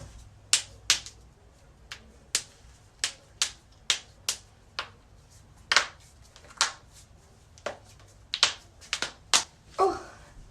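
Human joints cracking: a string of about eighteen sharp pops at irregular intervals, some in quick pairs.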